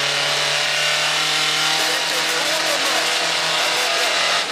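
Rally car engine running hard at a nearly steady pitch, over a loud hiss of road noise.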